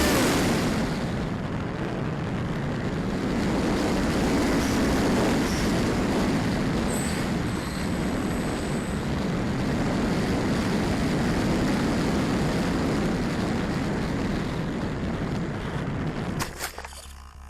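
Steady wind rush over the onboard camera's microphone of a small electric RC plane, with no motor tone. Near the end a few sharp clicks, after which the rushing stops.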